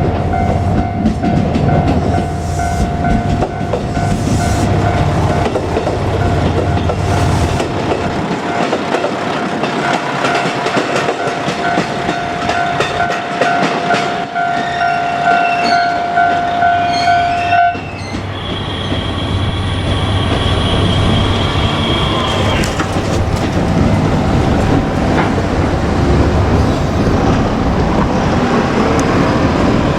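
KiHa 200 diesel railcar passing a level crossing, its engine running and its wheels clattering over the rails. Over it the crossing's electronic warning bell rings a steady high tone, which cuts off about 18 seconds in as the crossing clears. A thinner high-pitched ring or squeal from the train follows for a few seconds.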